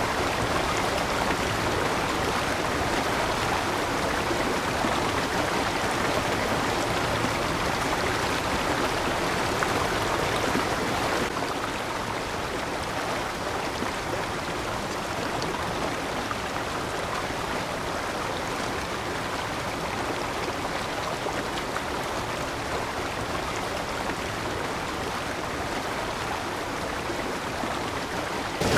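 Small mountain-creek waterfalls: water rushing and splashing steadily over rocks. About a third of the way in, the sound cuts to a slightly quieter, duller flow.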